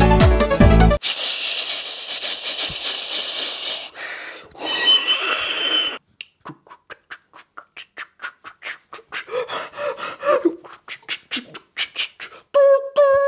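Beatboxer making sound effects with the mouth: a long high hiss, then a shorter noisy sound with a whistle in it, then a rapid, irregular run of clicks and pops, and near the end a held tone. Music cuts off about a second in.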